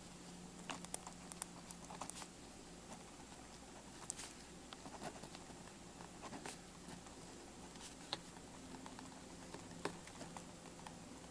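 Faint, irregular scratches and ticks of a Uni Jetstream multi-pen writing on paper.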